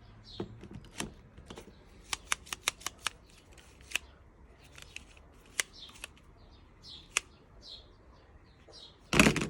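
Handling noise from a small mobile phone: scattered sharp clicks and taps, a quick run of them about two to three seconds in, then a louder rustling bump near the end.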